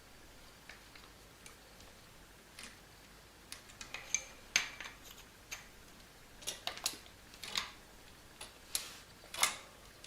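Irregular clicks and clinks of a door closer mechanism's parts being handled while its springs are worked back into place, with a cluster of louder knocks about halfway through and more toward the end.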